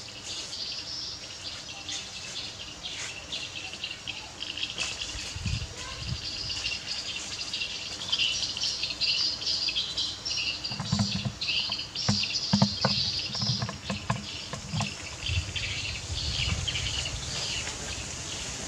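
Outdoor ambience of insects and birds chirping in a steady, dense chorus, with a few soft low thumps and light rustling and clicks in the middle.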